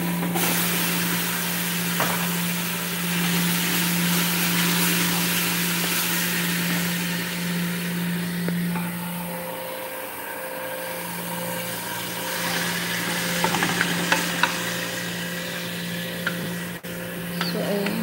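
Chunks of meat sizzling in a hot metal pot over a high gas flame, the hiss loudest in the first half and easing off about nine seconds in, over a steady low hum. Near the end a wooden spoon knocks and scrapes against the pot as the meat is stirred.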